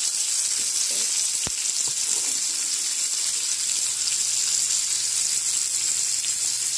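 Porterhouse steak sizzling steadily as it sears in melted butter in a frying pan, with a light click about a second and a half in.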